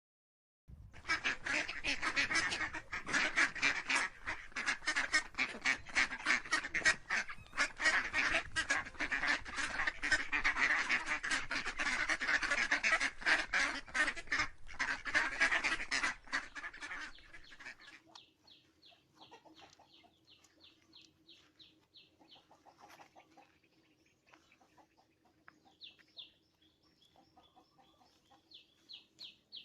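A flock of domestic ducks quacking, many calls overlapping in a dense, loud chorus for about the first seventeen seconds. After that the quacking drops away, leaving quieter runs of rapid high-pitched chirps.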